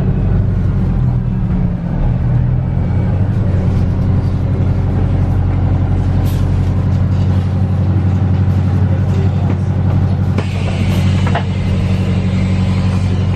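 Inside a moving London double-decker bus: a steady low hum of the engine and drivetrain with road noise. About ten seconds in, a hiss sets in as the bus pulls in to stop.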